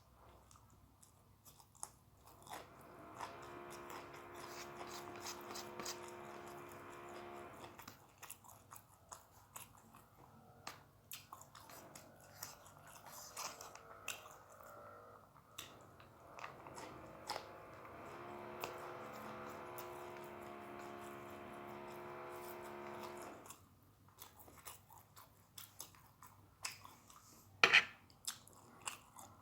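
A person eating: close crunchy bites and chewing, raw long beans crunching between the teeth. Twice, for about five seconds each, a steady hum of several tones sits underneath.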